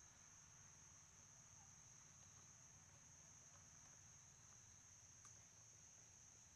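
Near silence, with a faint, steady high-pitched insect drone.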